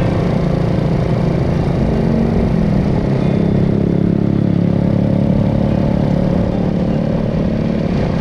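Small motorcycle or moped engine running under way, its pitch shifting and rising for a while midway as it speeds up, with road noise.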